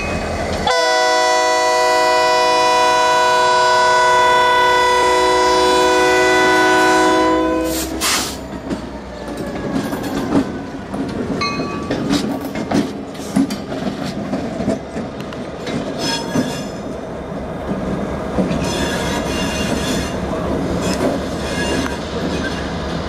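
BNSF diesel locomotives sounding their multi-note air horn in one long blast of about seven seconds. The horn stops, and the engines run on as the locomotives roll slowly past, with wheels clicking over the rail joints and squealing briefly.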